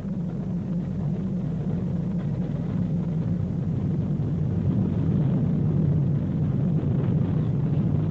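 Propeller aircraft piston engines droning: a low, steady rumble that slowly grows louder.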